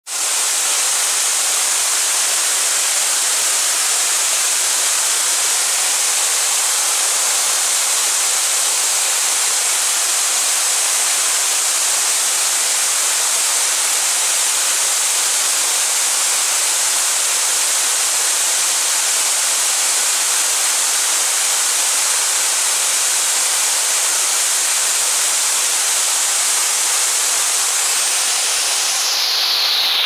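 Waterfall cascading over a rock ledge into a pool: a loud, steady rushing hiss of falling water, bright and high in tone.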